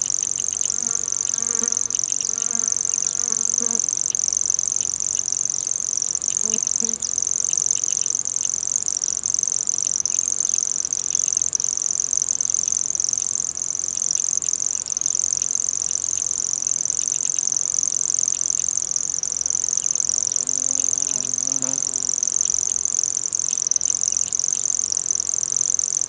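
Common grasshopper warbler singing its unbroken, insect-like reel, a steady high-pitched whirr held without a pause.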